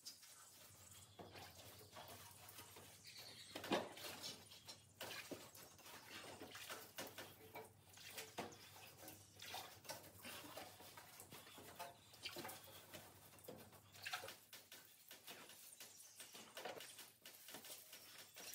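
Faint, irregular scrubbing, scraping and knocking with a little water, from the metal bulkhead of a Land Rover Defender being washed down.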